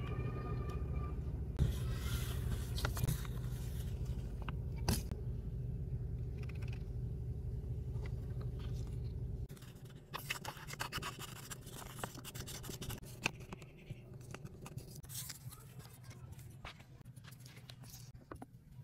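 Sheet of paper handled and rustling, with small scratching clicks. A steady low hum underneath cuts off abruptly about halfway through. After that only the quieter paper rustles and clicks remain.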